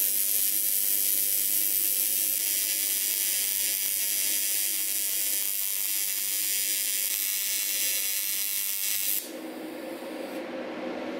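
TIG welding arc on aluminum, a steady high hiss as a sensor bung is welded onto an intake tube. It cuts off about nine seconds in, leaving a lower steady whir.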